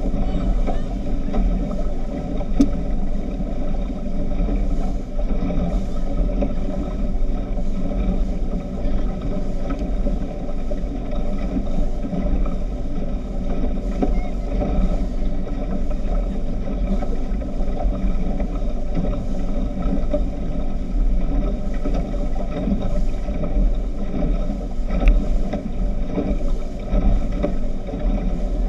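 Speedboat engine running steadily under way, a constant low drone.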